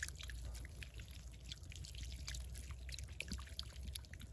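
Water poured from a bottle over hands to rinse them, splashing and dripping in short irregular spatters.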